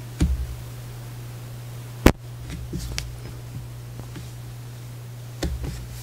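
Handling sounds of hand embroidery: a few soft knocks and taps as the cloth and hands touch a wooden tabletop, and one sharp click about two seconds in, over a steady low hum.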